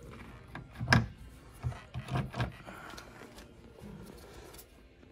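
Handling noise: a gloved hand rubbing and knocking against a plastic taillight and the trunk interior, with a few sharp clicks and knocks, the loudest about a second in.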